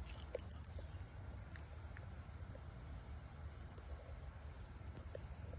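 Steady chorus of crickets, a constant high-pitched trill, with a few faint short chirps over it.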